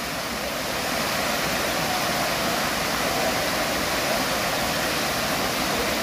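Waterfall cascading over rocks down a gorge: a steady, even rush of falling water.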